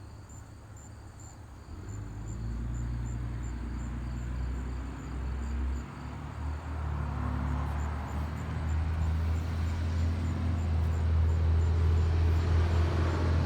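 A low engine rumble starts about two seconds in and grows steadily louder. Crickets chirp faintly in the background throughout.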